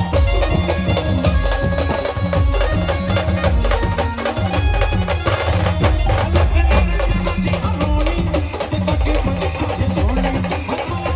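Maharashtrian brass band playing a folk-devotional tune: brass melody over a steady, heavy drum beat with clacking percussion.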